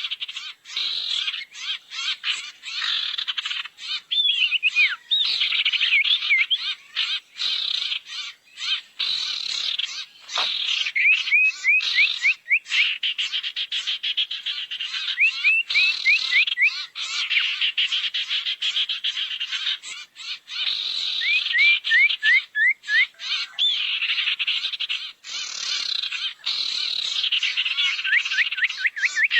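Bird-lure recording of sirtu calls: harsh, chattering squawks with repeated bursts of quick, sharp whistled notes every few seconds.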